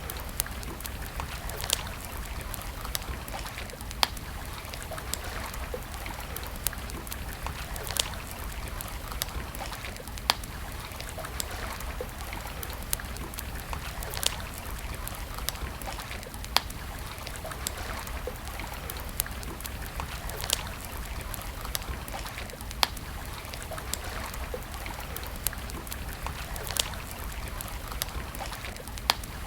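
Wood campfire crackling: sharp pops every second or two, a few louder than the rest, over a steady hiss.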